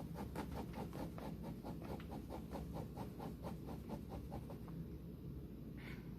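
A rapid, even run of light clicks, about five a second, that stops about four and a half seconds in, followed by one short higher-pitched sound near the end.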